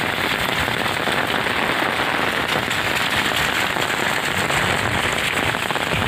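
Heavy rain falling steadily on a brick-paved lane, a dense even hiss that neither builds nor eases.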